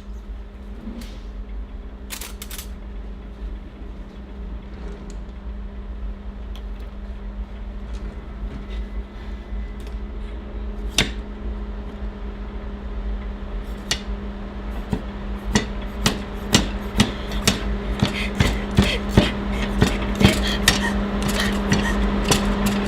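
A steady low hum that gradually swells, with a few scattered sharp knocks at first, then knocks coming faster and faster, several a second, over the last several seconds.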